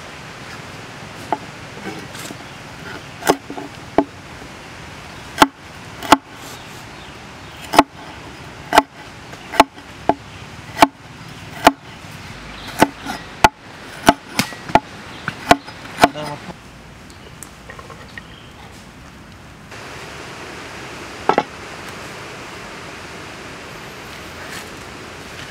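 Meat cleaver chopping galangal root on a thick wooden chopping block: a run of sharp knocks, about one a second and quickening slightly, that stops about two-thirds of the way through, with one more double knock a few seconds later.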